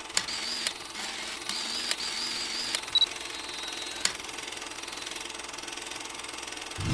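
Film projector sound effect: a steady mechanical rattle with hiss and a few sharp clicks and pops, and a faint wavering high whistle that comes and goes in the first three seconds. Music starts loudly at the very end.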